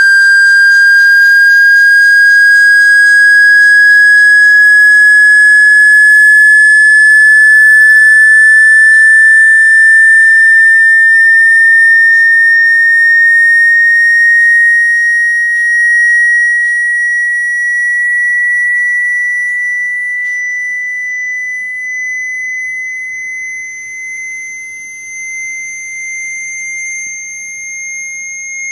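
Loud electronic sine tone of a speaker water-ejection sweep, rising slowly and evenly in pitch; it is played at full volume so that it vibrates water out of a phone or earphone speaker. It fades somewhat in the last third.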